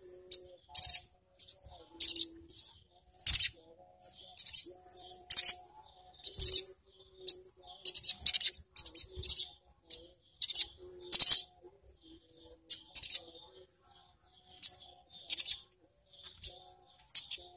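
Sogok ontong (sogon) sunbird calling: short, sharp, very high twittering bursts, about one a second with quick doubles and triples, the rapid 'ngriwik' chatter.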